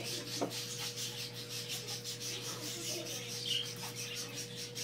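Small Shih-poo puppy panting rapidly in excitement, about five breaths a second, with one brief high whimper about three and a half seconds in.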